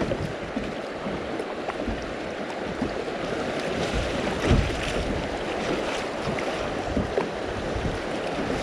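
Rushing river water of a riffle around a kayak running rough water, with a few low thumps, the strongest about halfway through.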